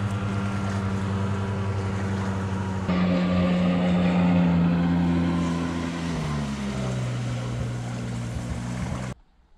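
Jet ski engine running steadily on the water, getting louder about three seconds in, then dropping in pitch around six seconds in. It cuts off suddenly near the end.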